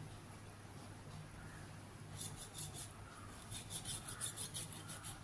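A kitchen knife scraping and cutting at the bone end of a raw chicken drumstick: a quick run of short rasping strokes, several a second, starting about two seconds in.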